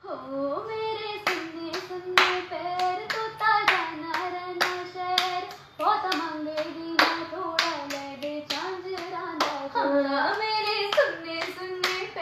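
A woman singing a slow melody unaccompanied, holding long notes and gliding between them, with hand claps about twice a second keeping time.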